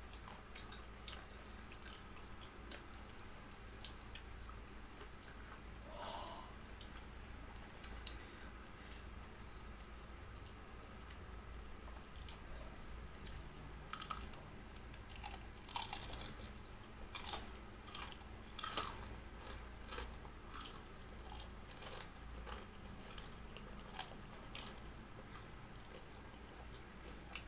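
Close-miked eating of Samyang instant noodles: scattered short, wet chewing and slurping sounds, busiest about halfway through.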